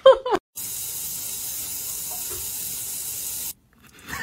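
A steady, even hiss that starts about half a second in, holds at one level for about three seconds, then cuts off suddenly.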